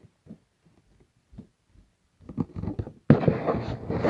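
Handling noise from a phone held in the hand: scattered light taps and knocks, then loud rubbing and rustling on the microphone from about three seconds in as the phone is moved.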